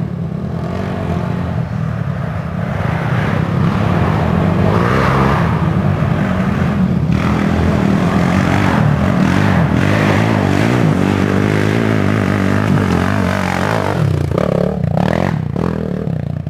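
Racing quad (ATV) engines running hard and revving, growing louder through the middle and easing off near the end.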